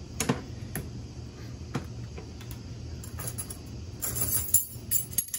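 Light clicks and clinks of a measuring spoon and a small glass jar of salt being handled on a steel counter, with a quick cluster of rattly, hissy clinks about four seconds in. A steady low hum runs underneath.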